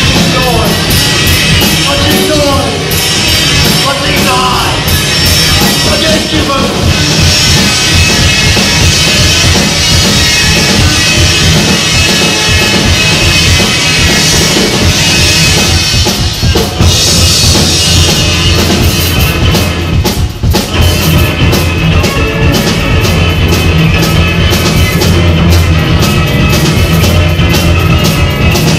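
Loud live rock band playing: a drum kit with cymbals over bass and guitar. The band stops for an instant about two-thirds of the way through.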